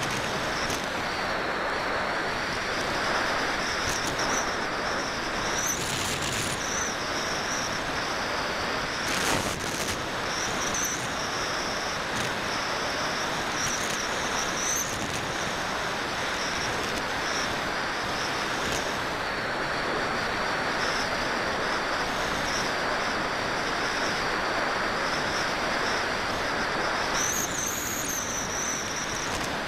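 Steady rush of wind over a Parkzone Radian glider's airframe and its onboard camera microphone in flight, with a thin high whine that wavers up and down in pitch throughout.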